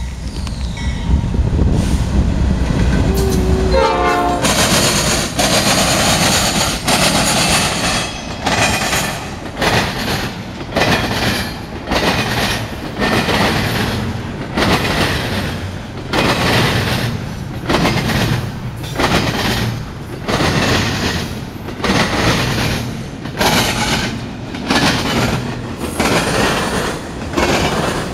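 Norfolk Southern freight train passing close by: the locomotives' diesel rumble, a brief blast of the air horn about three to four seconds in, then a long string of intermodal trailer cars rolling past with a rushing rail noise that swells and dips about once a second.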